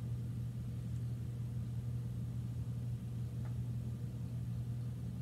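Steady low hum of room tone, with a single faint tick about three and a half seconds in.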